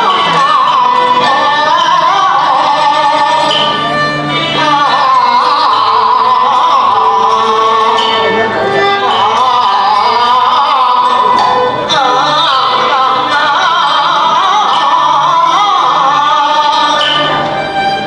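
Cantonese opera song (yueqv) sung with a small instrumental ensemble accompanying: a solo voice with sliding, wavering pitch over sustained lower instrument tones.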